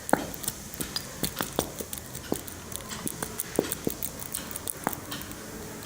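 Irregular small clicks and wet pops from glue squeezed out of a plastic bottle into a small pot, sputtering as air comes out with it.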